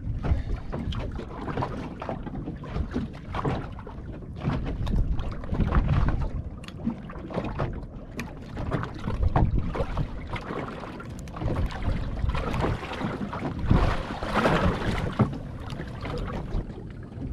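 Wind buffeting the microphone over the wash of swell around a small anchored boat, with scattered knocks and clicks of fishing gear being handled as a small snapper is reeled in and landed.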